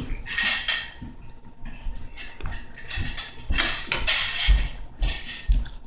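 Plates and cutlery clattering and scraping, with four or five short scraping strokes and a few dull low bumps toward the end.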